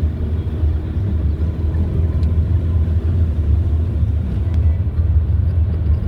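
Steady low rumble of a moving vehicle, engine and road noise.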